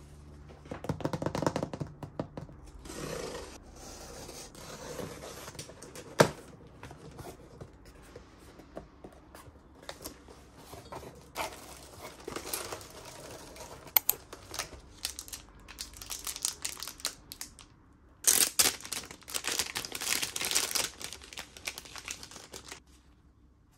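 Cardboard parcel being unboxed by hand: packing tape torn off, flaps pulled open, and kraft honeycomb paper and a clear plastic bag crinkling. There is a sharp snap about six seconds in, and the loudest crinkling comes in the last few seconds.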